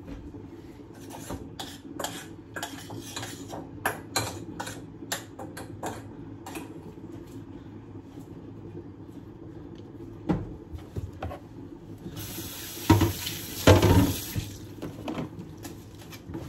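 Kitchen clean-up at the sink: dishes and utensils clatter in quick knocks for the first several seconds, then a tap runs for about two seconds near the end while dishes knock in the sink. A steady low hum runs underneath.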